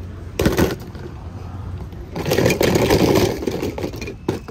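Die-cast toy car dropped into a plastic tub of water: a short splash about half a second in, then a longer, louder stretch of noise about two seconds in, and a sharp knock near the end.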